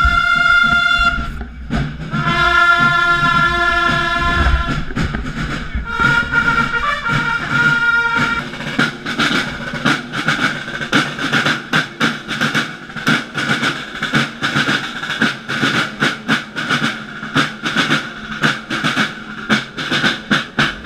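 Long straight herald trumpets sounding three long held fanfare blasts. At about the halfway point a corps of marching side drums takes over, beating a fast, steady rhythm.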